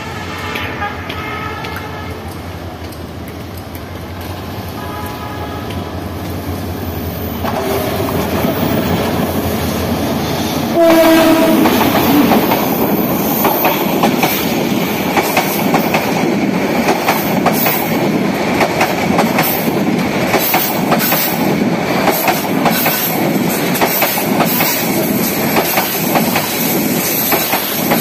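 Kurigram Express passenger train approaching and passing close by. Its horn sounds a short blast about eleven seconds in, then the coaches run past with a steady rumble and a rapid clickety-clack of wheels over the rail joints.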